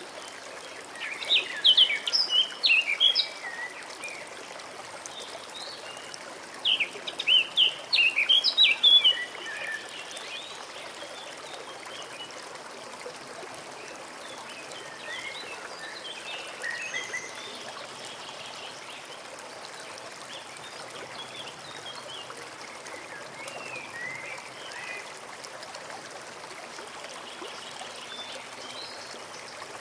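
Small stream running steadily while a songbird sings two loud, rapid twittering phrases, about a second in and again around seven seconds in, with fainter bird calls later.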